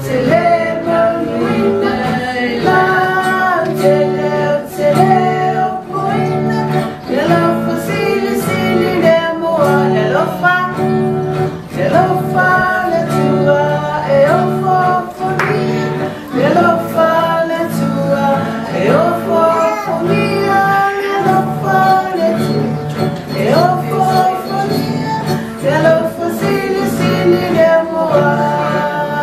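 A woman singing to an acoustic guitar accompaniment.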